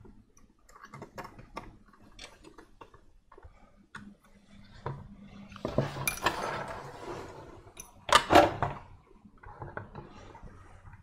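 Small metal clicks and clinks of a screwdriver and wire terminals being handled, then a longer rustle of handling about six seconds in and two loud knocks just after eight seconds as a metal-cased power supply is set against the printer's control box.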